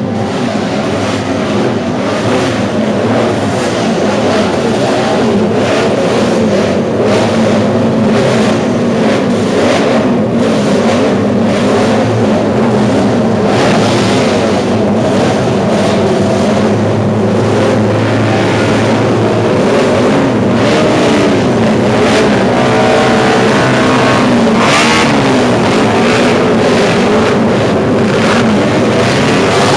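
Several vintage Honda multi-cylinder Grand Prix racing motorcycles running together, their high-revving engines blipped up and down in a dense, overlapping howl. A burst of rising revs stands out about three quarters of the way through.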